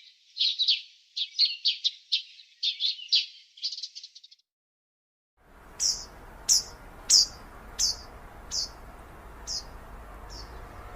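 Small birds chirping: a quick run of short chirps, then after a second of silence at a cut, a bird repeating a single high note that falls in pitch, about seven times, slowing and fading, over a steady background hiss.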